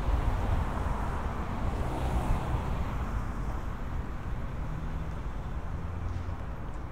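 Downtown street traffic: a vehicle passes close by in the first couple of seconds, followed later by a low, steady engine hum.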